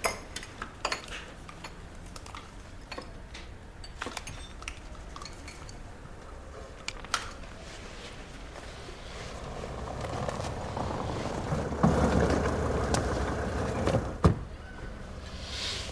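Café sounds: scattered small clinks and taps of cups, saucers and cutlery, then a louder rumbling hiss that builds about two-thirds of the way in and runs for several seconds, with a sharp knock near the end.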